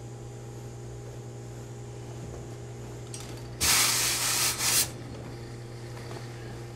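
Steam iron letting out a burst of steam onto wool suit trousers being pressed: a loud hiss lasting just over a second, starting about three and a half seconds in.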